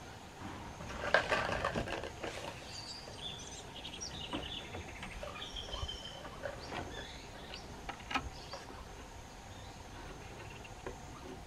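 Birds chirping with a faint steady insect drone, and a burst of rustling and crackling about a second in, with a few sharp clicks later.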